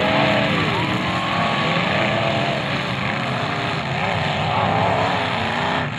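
Many demolition derby cars' engines revving together on the dirt as the heat starts: a loud, steady din with pitches rising and falling.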